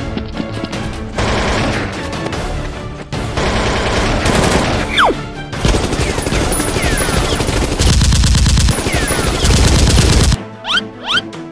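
Long stretches of rapid machine-gun fire over action background music, cutting off suddenly near the end.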